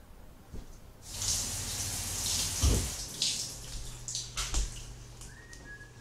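A tap turned on and running into a sink, its steady rush of water starting about a second in and easing off after about four seconds, with a couple of knocks along the way. Near the end a few short, clear whistled notes begin.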